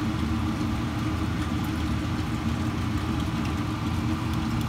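A steady low motor-like hum, unchanging in pitch and level.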